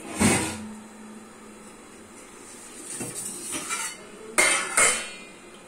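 Stainless steel kitchenware clanking as a plate and pots are handled: a clank just after the start that rings on briefly, lighter knocks about three seconds in, and two sharp clanks near the end.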